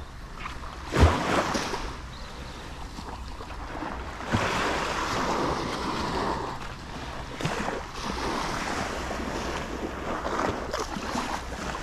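Small waves washing and breaking on a sandy shore, with wind buffeting the microphone. A sharp thump about a second in, the loudest sound, and a smaller one around four seconds in.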